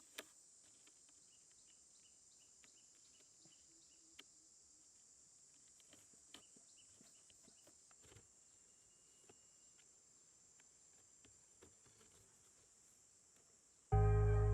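Quiet outdoor ambience: a steady high hiss with scattered light clicks and taps. Music comes in near the end.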